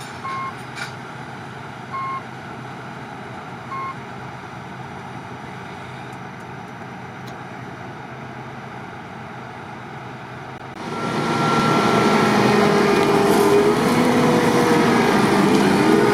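New Holland CX 7.90 combine harvester running steadily at a lower level while a reversing alarm beeps three times, evenly spaced. About eleven seconds in, the combine's engine and threshing noise jumps sharply louder, its pitch wavering as it works.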